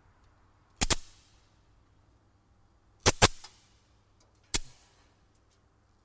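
Electric bug zapper zapping insects: sharp snapping cracks in three bursts, a double crack about a second in, another double around three seconds in and a single one a little later, each trailing off quickly.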